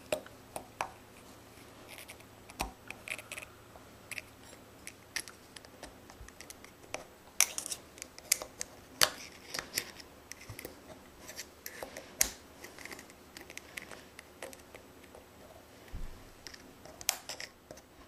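Spiral lock clip being worked around into the wrist-pin bore groove of a piston with a small pick: irregular small metallic clicks and scratches.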